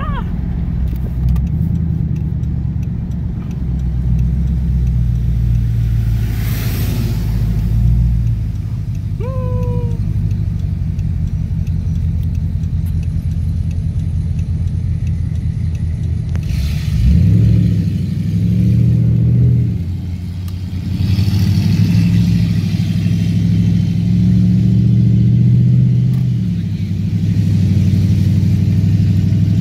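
Low-speed rumble of a 1962 Dodge Custom 880's V8 engine and exhaust while cruising, the note rising as it accelerates about seventeen seconds in and again a little after twenty seconds.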